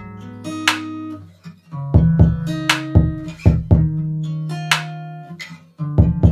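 Background music: a plucked string riff over a bass line, with a beat of sharp hits about every two seconds.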